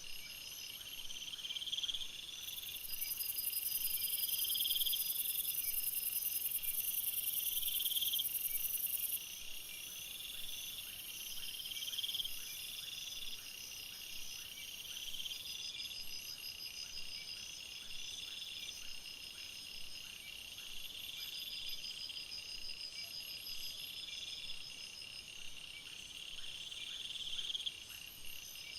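A night chorus of crickets and other insects: a chirping trill repeats about every two seconds and swells each time, over steady pulsing chirps. A very high, shrill insect drone joins about two seconds in, is loudest until about nine seconds, and fades out after about fifteen seconds.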